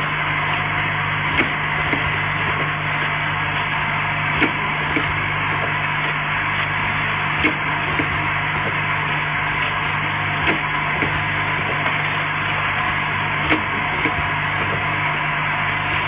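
Automatic rotary filling, plugging and capping machine for glass essential-oil bottles running: a steady mechanical whir over a constant low hum, with a sharp click about every three seconds and lighter clicks in between.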